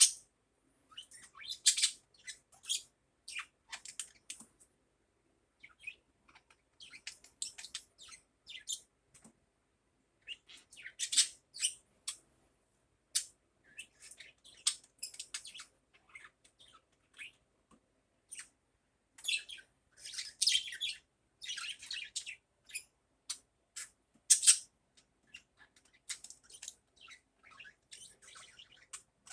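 Budgerigar chirping and chattering in short, high-pitched bursts with brief pauses in between.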